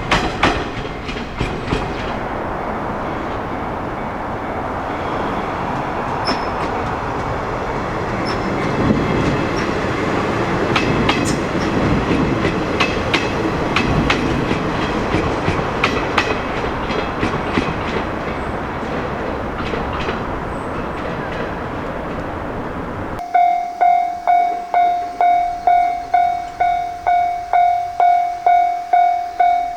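Train running over a level crossing: steady rushing noise with wheel clicks on rail joints. About 23 seconds in it cuts off suddenly to a Japanese level-crossing warning bell, ringing steadily at about two to three strikes a second.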